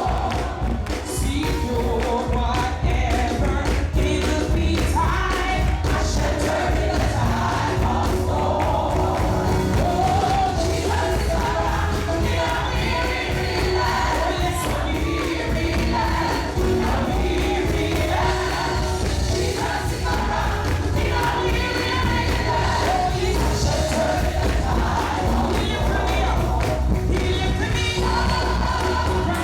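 Live gospel music: a choir and worship singers with a full band and a strong steady bass, the congregation singing along.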